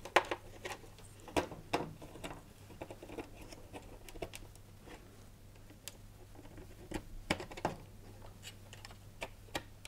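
Plastic wiring connectors being pushed onto a tumble dryer's replacement control board: faint, irregular small clicks and plastic rattles as the plugs and wires are handled and seated.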